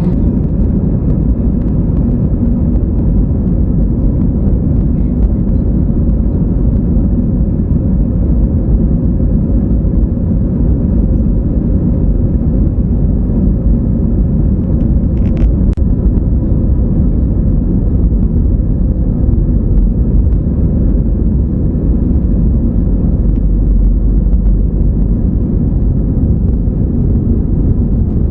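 EasyJet airliner's jet engines and airframe, a steady low rumble that neither rises nor falls.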